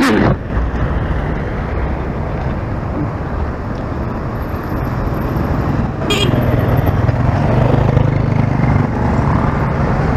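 Street traffic with cars, minivans and motorcycles passing. There is a brief falling swoosh right at the start and a short horn toot about six seconds in. A motorcycle engine runs close by for a few seconds after the toot.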